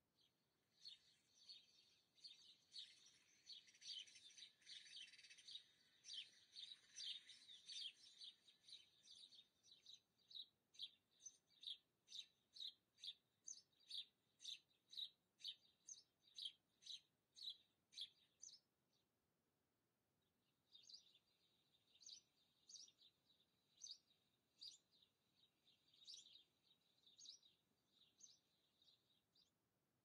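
Small birds chirping faintly: a dense tangle of high chirps, then a run of evenly spaced chirps about two or three a second, a short pause, and more chirps.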